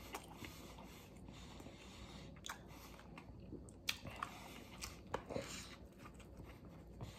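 Faint sounds of a man eating a burger: chewing and handling the food, with a few short clicks and crackles scattered through the middle, and a bite into the burger near the end.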